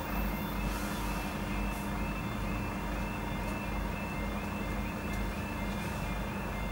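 Level crossing's electronic audible warning alarm sounding: a short rising yelp repeated about three times a second, over a steady low rumble.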